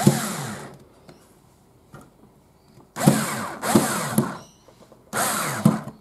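Cordless drill driving wood screws through a deadbolt faceplate into a door edge in short trigger bursts. There is one at the start, a longer two-part run about three seconds in, and a short one near the end. The motor whirs up and winds down with each burst.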